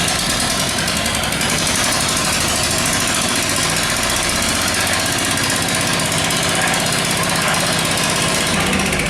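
A small engine running steadily at a fast, even beat, typical of the machinery used for pouring a concrete roof slab.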